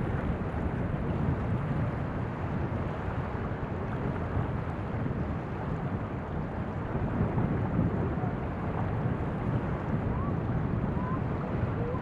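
Wind on the microphone, a steady gusty rumble, over small waves lapping on a sandy shore. Two faint short chirps near the end.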